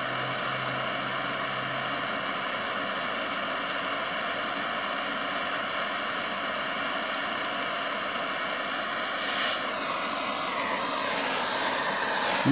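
Handheld gas torch flame hissing steadily as it heats an ATV's fan temperature sensor. The pitch wavers for a couple of seconds near the end.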